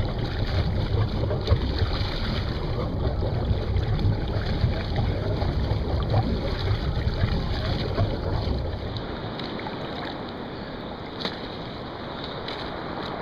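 Wind buffeting the microphone and sea water rushing past a moving boat, with heavy irregular rumble. About eight and a half seconds in it drops to quieter, thinner water sound.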